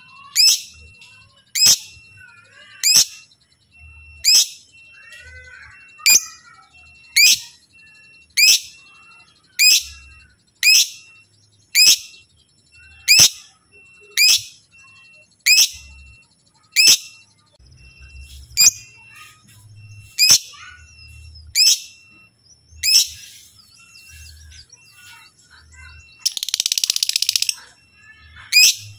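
Lovebird calling: sharp, high, downward-sweeping chirps repeated about once a second, with fainter bird chirping behind. Near the end comes a louder, harsh, noisy burst lasting nearly two seconds.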